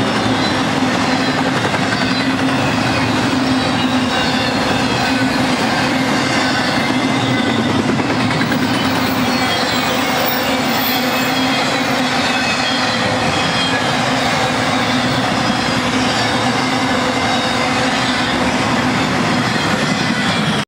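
Double-stack intermodal freight train's loaded well cars rolling past on the rails: a loud, steady rumble of wheels on track with a steady low hum under it.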